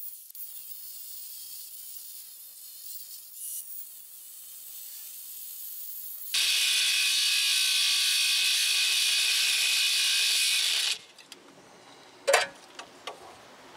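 Craftsman angle grinder with a cutoff wheel cutting through a steel ball joint stud: lighter grinding for the first few seconds, then loud, steady grinding that cuts off suddenly about eleven seconds in. A few sharp metal clicks follow.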